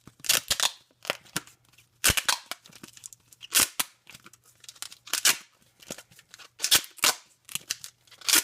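Duct tape being pulled off the roll and pressed around cardboard, in a series of short, crackling rips, about one or two a second.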